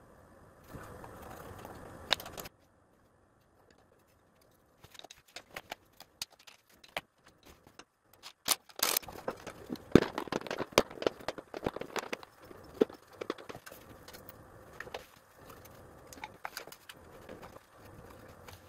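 Irregular clicks, rattles and knocks of metal and plastic parts being handled as a tri-fuel propane carburetor and its air filter housing are fitted onto a small generator engine. The busiest stretch comes about halfway through, after a short gap of dead silence near the start.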